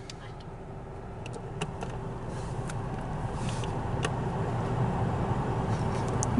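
Car engine running, heard from inside the cabin: a steady low hum that grows gradually louder, with a few faint clicks.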